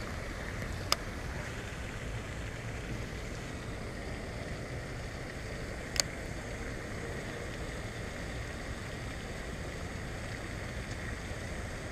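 Steady outdoor noise: a low rumble of wind on the microphone under an even hiss of water, likely spray from the pond's fountain. Two short clicks cut through it, a faint one about a second in and a louder one about six seconds in.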